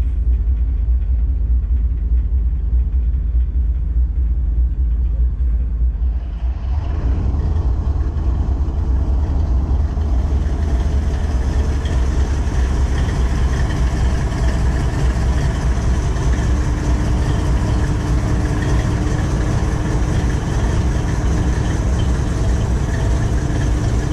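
Union Pacific diesel-electric locomotive's engine idling with a steady low rumble. About six and a half seconds in, the sound turns fuller and brighter, with more hiss and whir, and a steady hum joins from about sixteen seconds.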